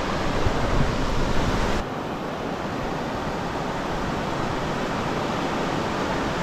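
Mountain trout stream rushing, a steady hiss of moving water. A low rumble under it drops out abruptly about two seconds in.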